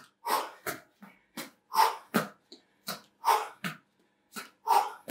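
A person breathing hard and rhythmically during a cardio workout: a strong breath and a weaker one in turn, with a strong breath about every one and a half seconds.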